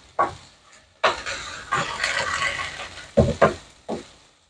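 Wooden spatula stir-frying kangkong (water spinach) and ham in a non-stick wok: about a second in, two seconds of scraping and sizzling as the greens are tossed, with single knocks of the spatula against the pan near the start and a few more near the end.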